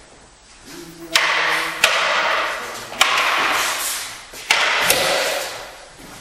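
Wooden singlesticks striking each other in sparring: five sharp clacks over about four seconds, the first about a second in. A loud rushing noise follows the strikes and lasts about a second each time.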